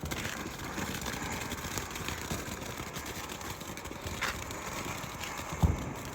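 A lit firework going off with a steady hiss and scattered small pops, and a dull thump near the end.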